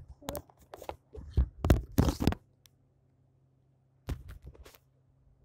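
Slime being squeezed and pulled by hand: a run of sharp crackles, pops and tearing sounds, loudest about two seconds in, then a shorter bunch of clicks about four seconds in.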